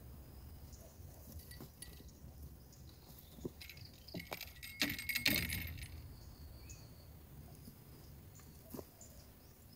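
Light clicks and rattles of fishing tackle being handled at a seat box, busiest about five seconds in.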